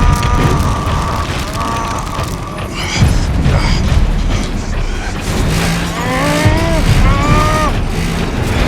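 Action-film sound mix: a heavy, dense rumble with mechanical clanking and a sharp impact about three seconds in, under a music score with held and sliding notes.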